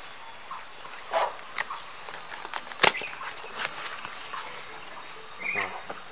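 Cardboard lens box being opened by hand: the paper seal tearing and the flaps and inner tabs rustling and snapping, with a sharp click about three seconds in. A steady high insect drone runs underneath.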